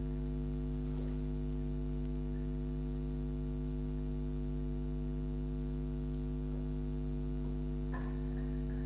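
Steady electrical mains hum: a constant low buzz with a stack of even overtones and no change in level.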